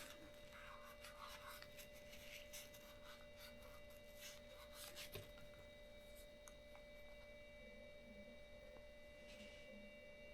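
Near silence: a faint steady electronic whine of several held tones, with a few faint ticks and soft handling rustles.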